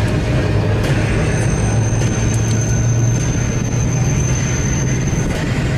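Open-top Blackpool Boat tram running on street track, heard from on board: a steady low rumble of motors and wheels over a noisy haze, with a thin high whine from about a second in until shortly before the end.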